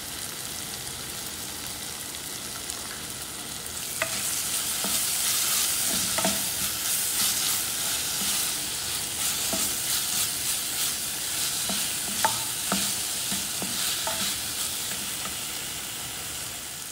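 Sliced onions and chillies sizzling in hot oil in a pan while a metal spoon stirs them. The sizzle grows louder about four seconds in, when the stirring picks up, with scattered clinks and scrapes of the spoon against the pan.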